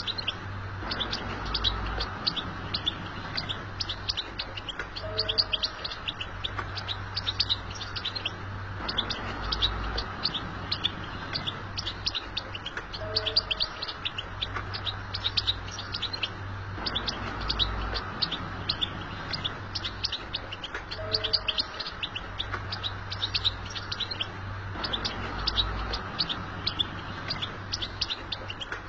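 European goldfinch singing a fast, unbroken run of twittering chirps. The same passage recurs about every eight seconds, as a looped recording would, over a low steady hum.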